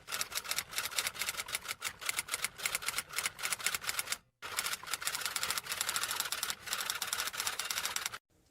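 Rapid key clicks of fast typing, many strokes a second, with a brief pause about four seconds in; the typing stops shortly before the end.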